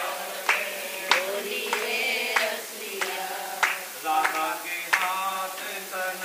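A group of women singing a devotional chant together, clapping their hands in time with a steady clap a little under twice a second.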